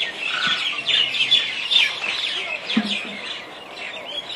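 Many birds chirping at once: a dense, overlapping chatter of short high chirps, with one brief lower call a little under three seconds in.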